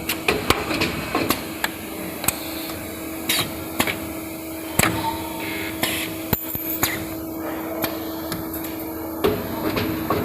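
Steel wire ring-making and butt-welding machine working: irregular sharp clicks and metallic knocks over a steady hum and hiss. The hum stops about nine seconds in.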